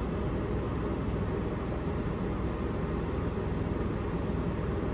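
A van's air conditioner running steadily: an even low hum with a hiss of moving air.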